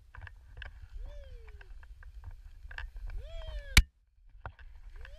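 Skis running through powder snow with a steady low wind rumble on the microphone and scattered snow and pole clicks. A voice gives two long whoops that rise then fall, a third starting near the end. About two-thirds of the way in, a sharp knock cuts the sound to silence for half a second.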